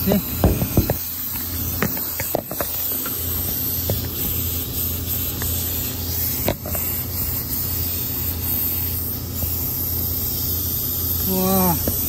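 Steady low machine hum with a hiss over it. In the first second there are a few light knocks and scrapes from hands working among the copper tubing of an air-conditioning condenser, then a couple of faint clicks later on.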